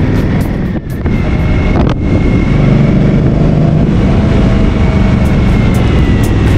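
Motorcycle engine running on the move, with wind buffeting the microphone; the sound dips briefly twice, about one and two seconds in.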